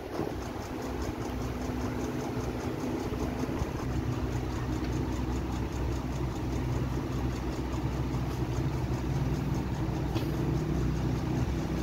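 Steady low mechanical hum with fixed pitched tones, like a motor or engine running.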